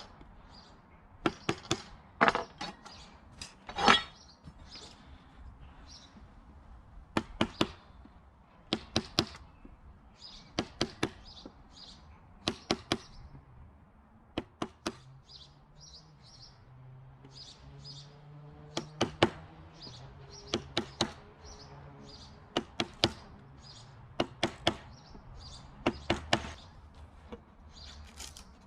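Chisel struck with a mallet, chopping out a hinge recess in wood: sharp taps in quick groups of two to four, a group every second or two. Birds chirp faintly behind, mainly in a quieter stretch in the middle.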